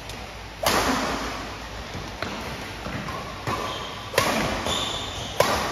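Badminton rally: rackets striking a shuttlecock with sharp, echoing cracks, several in a row, the loudest about half a second in, just after four seconds as a jump smash lands, and near the end.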